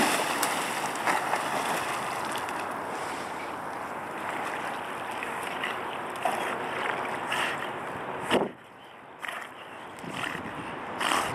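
Rushing water and wind on the microphone around a black labrador swimming in a river with a stick. The noise fades slowly, and a sharp knock about eight seconds in is followed by a quieter stretch with a few short knocks near the end.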